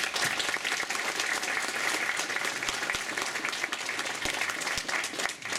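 Audience applauding, a dense spread of hand claps that begins to thin out near the end.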